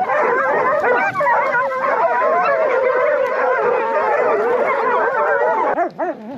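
A pack of bobcat hounds baying together at a treed bobcat, many voices overlapping in a continuous din that breaks off near the end.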